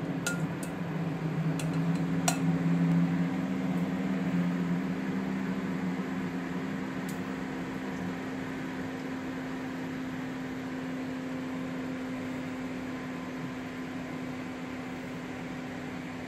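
Steady hum and whir of a running kitchen appliance fan, with a few light clicks in the first couple of seconds and one more midway.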